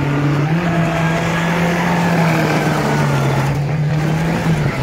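Small pickup's engine held at high revs while its rear wheels spin and smoke on the tarmac. The engine note steps up about half a second in and drops back near the end.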